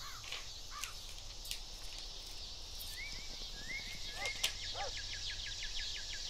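Open-field ambience: birds calling repeatedly, with a fast run of chirps from about halfway through, over a steady high insect hum.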